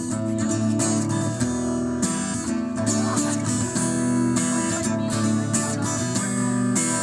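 Guitar strumming chords in a steady rhythm: the instrumental intro of a song, before the singing starts.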